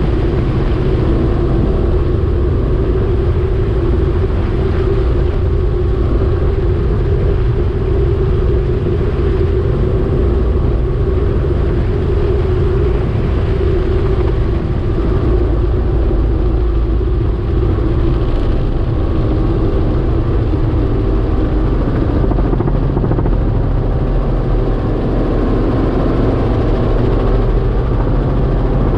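Small spray helicopter's engine and rotor running steadily in flight, heard from inside the cockpit: a loud, even drone.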